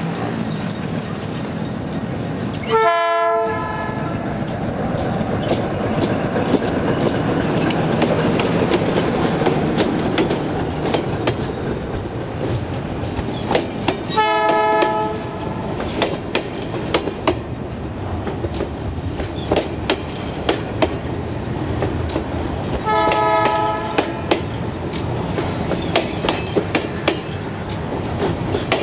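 Container freight train passing close by: the diesel locomotive and its wagons rumble past, and the wagon wheels click over the rail joints more and more often in the second half. Three short blasts of a chime-type train horn sound about three, fourteen and twenty-three seconds in.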